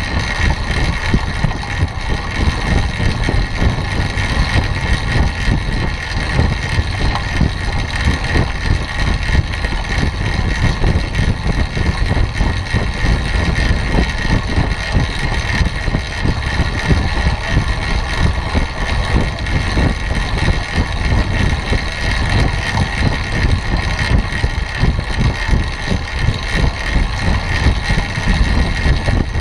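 Wind buffeting a bike-mounted camera's microphone at about 24 mph, over the steady whir of a track bike's tyres rolling on the wooden velodrome boards. The sound is continuous, a fluttering low rumble with a constant high whir.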